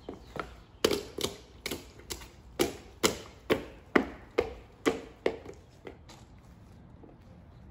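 Footsteps of a child's rubber rain boots slapping on a wet stone patio, a quick run of sharp steps about two a second that stops after about five seconds.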